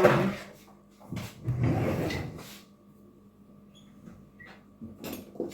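Kitchen handling noises: a short knock and a scrape of things being moved about a second and a half in, then a quiet stretch with a few small clicks.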